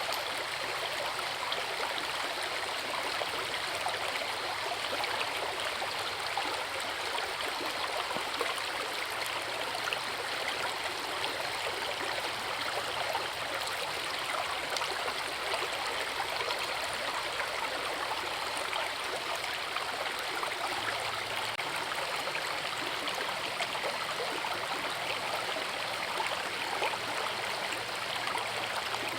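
Forest river water rushing and splashing over rocks, a steady, unbroken wash of flowing water.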